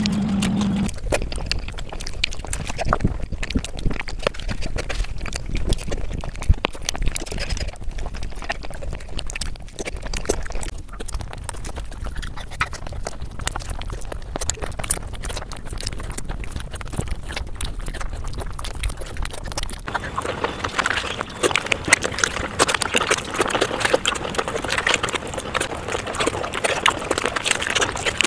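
Close-miked eating sounds: wet chewing and lip-smacking clicks, with hands squishing rice and gravy. The clicking grows denser about two-thirds of the way through.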